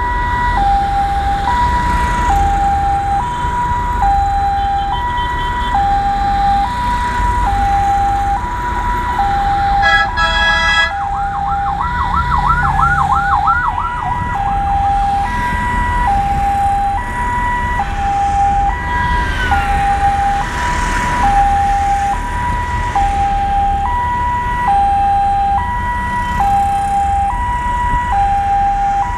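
Two-tone vehicle siren sounding steadily, switching between a high and a low note about every two-thirds of a second, over road rumble from moving traffic. About ten seconds in a short horn blast cuts across it, followed by a quick run of rising whoops for a couple of seconds.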